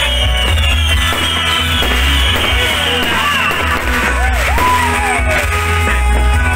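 Loud rock-style music with a heavy steady bass, guitar and singing.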